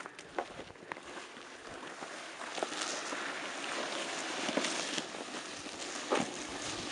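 Sled sliding over packed, crusty snow: a scraping hiss that grows louder over the first few seconds, with scattered crackles and crunches.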